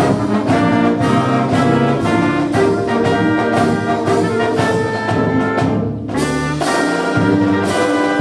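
Brass-led orchestral music with a regular beat, dipping briefly about six seconds in.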